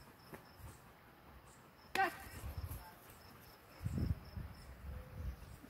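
Insects chirping steadily in a lawn, a high, evenly spaced pulsing that goes on throughout. About two seconds in comes one brief sharp pitched sound, the loudest event, and around four seconds there are low thumps.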